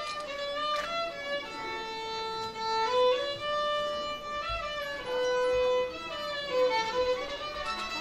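Solo violin playing a slow melody, one held note at a time, with a rising slide near the end.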